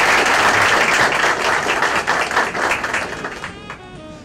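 A small group of people applauding, the clapping thinning out and dying away about three and a half seconds in.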